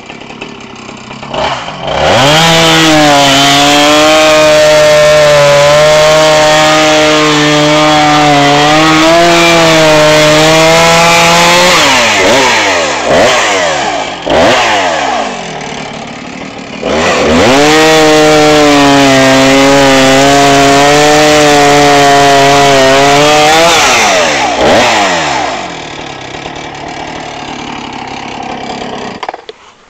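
Two-stroke chainsaw run up to full throttle and held there for about ten seconds with its pitch wavering under load as it cuts into a tree trunk. It drops back to idle, runs up for a second cut of about seven seconds, then idles and stops near the end.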